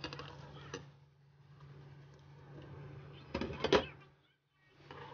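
Chopped squash, tomato and onion being tipped from a bowl into a pot of water, with knocks and clatters; the loudest clatter comes about three and a half seconds in. A steady low hum runs underneath.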